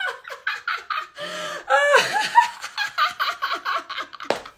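A woman laughing hard in a fast string of short ha-ha bursts, about four a second, as part of a deliberate laughter exercise.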